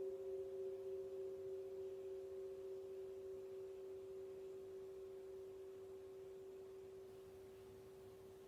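Struck gong ringing on in a long, steady, pure tone with a few faint higher overtones, slowly dying away.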